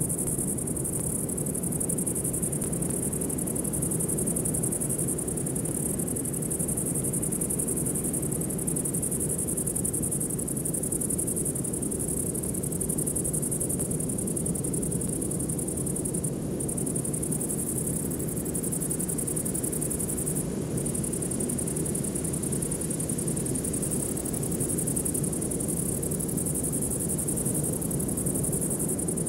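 Steady high-pitched insect chorus over a low, even ambient-music drone.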